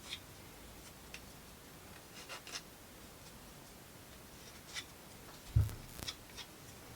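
Scattered light clicks and taps of small plywood model parts being handled and fitted together, with one louder, duller knock about five and a half seconds in.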